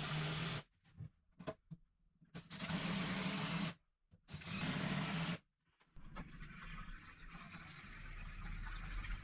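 A power tool run in three short bursts of about a second each, with a steady hum under its noise and small knocks in the pauses between. About six seconds in it gives way to a quieter, steady hiss.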